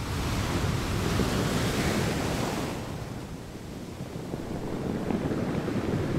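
Ocean surf sound effect, a steady rushing wash of waves that eases a little around the middle and builds again near the end.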